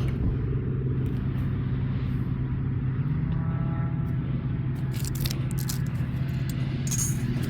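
A small engine running steadily with a low, even hum, with a few faint ticks on top.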